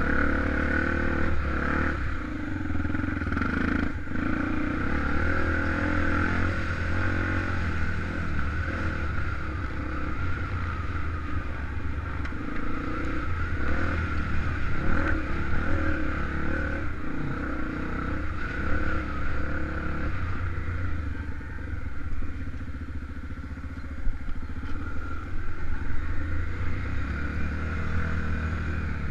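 Honda XR250 Tornado single-cylinder four-stroke motorcycle engine running off-road, the throttle opening and closing so the engine note rises and falls, with occasional knocks and clatter.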